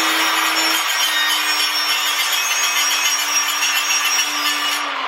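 Power grinder grinding weld spatter off a steel V-band turbo flange: a steady high motor whine over a harsh grinding hiss, the motor's pitch sagging briefly near the end as it is pressed harder into the metal.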